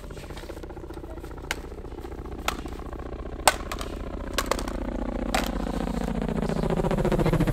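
Helicopter approaching, its rotor and engine sound growing steadily louder. Several sharp knocks stand out in the first half or so.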